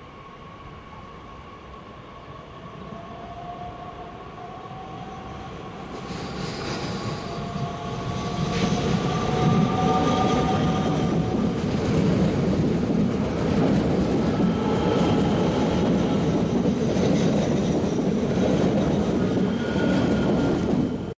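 Bombardier Talent 2 electric multiple unit pulling away and passing close by, its traction motors whining in slowly rising tones as it accelerates. The rumble of wheels on rail grows louder as it nears, then holds steady while the cars go past.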